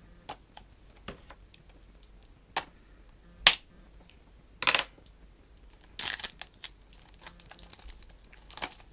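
Hands handling a plastic Blu-ray case and its wrapping: scattered clicks and taps, the sharpest about three and a half seconds in, with short crinkling bursts around five and six seconds in.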